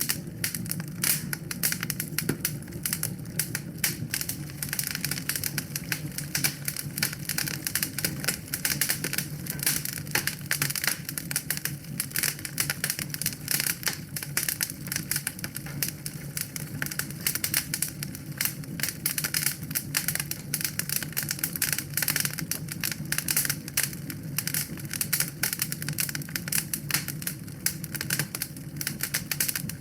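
Wood fire burning in a fireplace, crackling with a dense, irregular stream of small snaps and pops over a low, steady rumble.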